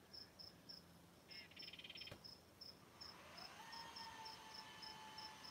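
Faint cricket chirping steadily at one high pitch, about three chirps a second, with a short buzzy trill about a second in. From about three seconds in, a faint hum rises in pitch and then holds steady.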